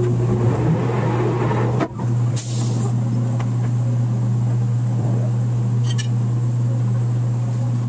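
Heavy drilling-rig machinery running with a steady low drone, with a few sharp knocks over it. The sound dips briefly about two seconds in.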